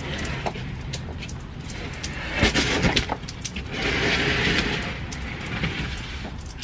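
Steady rain with scattered drops ticking, while a large plastic pot of potato plants is shifted across a concrete patio: a few sharp knocks and scraping about two and a half seconds in, then a louder rustling hiss for about a second.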